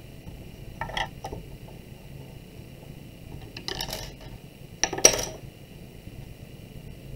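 Hands handling a clay slab on a wooden board: three short knocks and scrapes, the loudest about five seconds in, as the slab is worked and lifted off the board.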